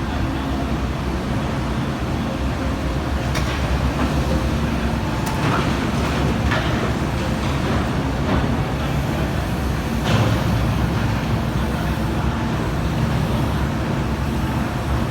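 Komatsu PC350-7 excavator's diesel engine running steadily under work, with a few sharp metallic knocks, the loudest about ten seconds in.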